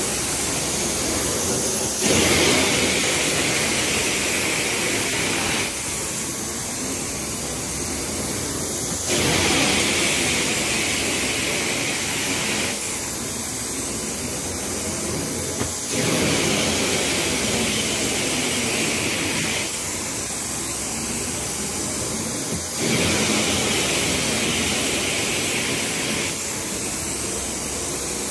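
Sapphire Scientific 870 truckmount carpet-cleaning wand drawn over carpet: steady vacuum suction rushing through the wand, with the hot-water spray jets hissing on and off in alternating strokes of about three and a half seconds, spray passes between dry vacuum passes. About four spray strokes come on sharply and cut off.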